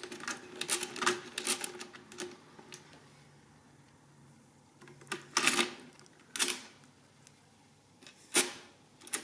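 Facit CM2-16 pinwheel mechanical calculator's side levers being pulled to clear the registers: a quick run of rattling mechanical clicks, then after a pause several separate sharp clacks.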